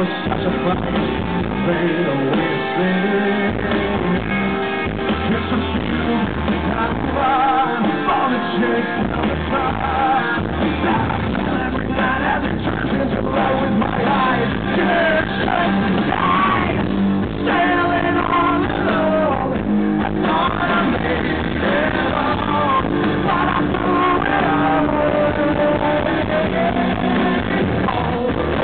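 Live rock band playing, with a male lead singer singing into a microphone over electric guitar.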